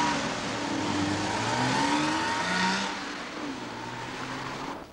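Car engine revving as the car pulls away and accelerates, the sound dropping away after about three seconds as it leaves.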